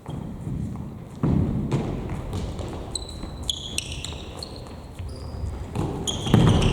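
Futsal ball being kicked and bouncing on an indoor court floor, with a heavy thud about a second in and another near the end. Short high squeaks from players' indoor shoes on the floor come in the middle and again near the end.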